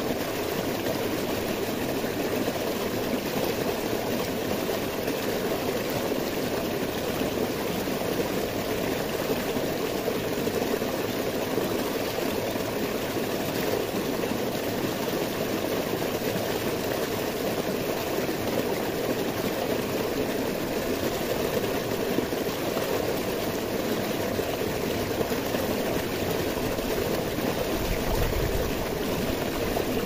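Stream water cascading over boulders close by, a steady splashing rush with no let-up.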